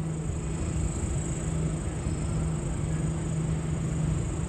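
Steady railway-station ambience: a constant low electric hum from Sydney Trains electric sets around the platforms, with a steady high whine above it.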